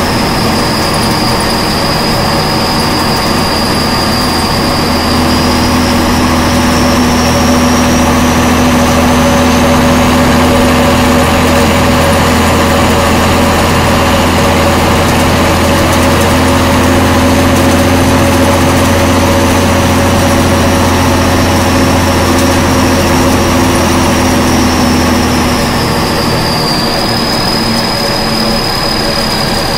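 1967 M35A2 army cargo truck's multifuel diesel engine running steadily under way, heard from inside the cab. A high whine rides over it, rising a little in pitch and falling back near the end, where the engine note also softens.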